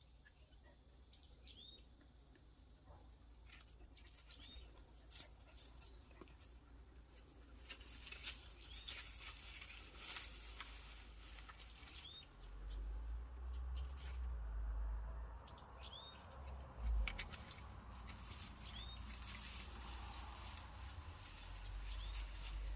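A bird repeats a short, high, hooked call about every two seconds. From about a third of the way in, rustling and crackling steps through undergrowth build up, and low wind rumble on the microphone joins about halfway through.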